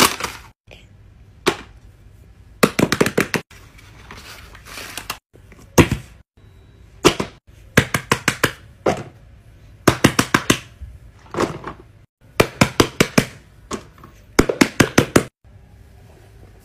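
Runs of quick, sharp taps and clicks, several a second in short bursts, from hands tapping and setting down silicone pop-it fidget toys on a tabletop.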